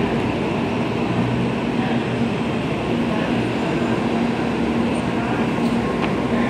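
N700-series Shinkansen pulling out of the station and gathering speed past the platform: a steady run of traction-motor hum and wheel and rolling noise.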